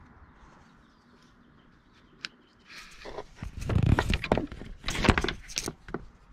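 Handling noise from the camera being picked up and moved by hand: a single sharp click about two seconds in, then irregular rustling, knocking and thumps on the microphone.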